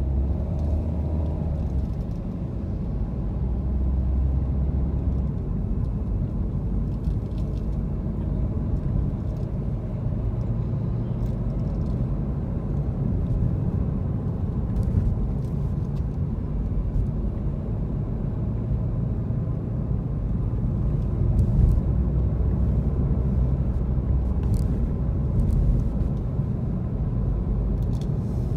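A car driving along city streets: a steady low rumble of engine and road noise, with a few faint ticks.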